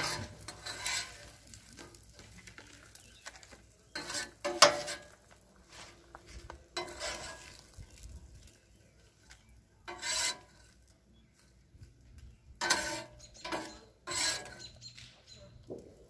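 Metal spatula scraping and clacking on a Blackstone flat-top griddle in about a dozen irregular strokes, the loudest about four and a half seconds in, as fried potatoes are worked off the steel and lifted onto a plate. A faint sizzle of grease runs underneath.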